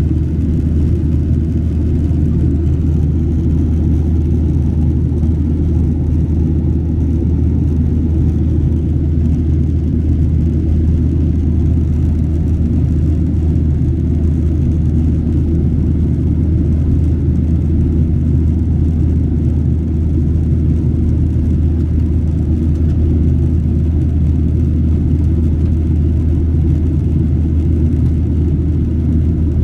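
Steady low rumble inside the cabin of a Boeing 737-800 in flight: the noise of its CFM56 turbofan engines and the airflow over the fuselage, heard from a window seat by the wing.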